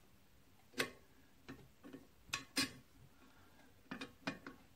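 Light metallic clicks and taps, about eight in a few seconds, from a wrench and bolts being handled on a cast-iron flywheel hub.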